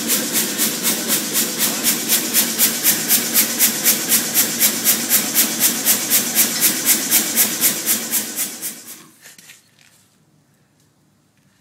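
Propane gas forge burner running with a loud, regular pulsing hiss, about four to five pulses a second, that fades away about nine seconds in.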